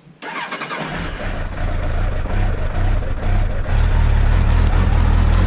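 Suzuki Bandit 1200's inline-four motorcycle engine starting: a brief crank about a quarter-second in, then the engine catches just under a second in and runs. It gets louder about two-thirds of the way through and holds steady.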